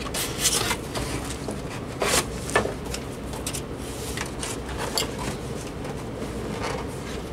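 Cardboard box and packing insert rustling and scraping as a rotary desk telephone is unpacked, with a few sharper knocks and scrapes, the loudest about two seconds in.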